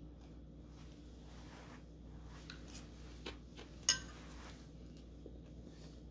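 A metal fork clinks sharply once against a ceramic bowl about four seconds in, after a few faint taps, over a low steady hum.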